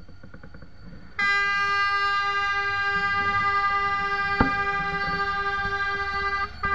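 Cane train diesel locomotive sounding its horn: one long, steady blast starting about a second in and lasting about five seconds, then a brief second toot. A single sharp knock is heard partway through the long blast.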